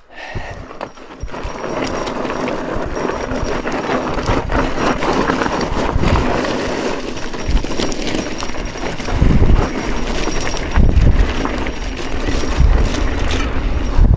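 Mountain bike descending a dry dirt singletrack: tyres rolling and crunching over loose dirt and rock, with the bike rattling throughout and several heavy knocks in the second half as the wheels hit bumps.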